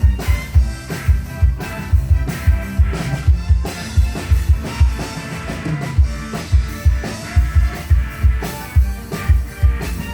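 Band music with a drum kit and guitar, a kick drum keeping a steady beat under the instruments.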